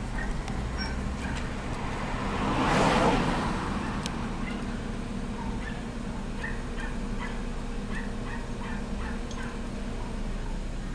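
Two small dogs, a pug and a white fluffy dog, barking and yapping over and over from behind a house window, over a steady low hum. A whooshing swell of noise rises and falls about three seconds in.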